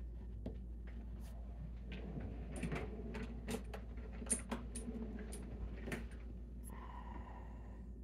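Sharp metallic clicks and light knocks from a brass padlock and small metal lock tools being handled and set down on a rubber desk mat, clustered through the first six seconds. About seven seconds in comes a brief scraping sound with a tone to it.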